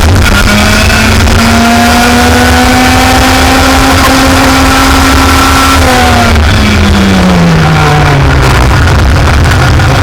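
Racing kart engine under load, its pitch climbing slowly and holding, then falling for about two seconds from about six seconds in as it slows, and climbing again near the end, over a steady low rumble.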